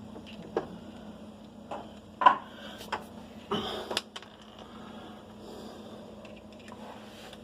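Scattered knocks, clicks and clatter of parts and tools being handled while a washing machine is worked on, the sharpest knock a little over two seconds in, with a faint steady hum underneath.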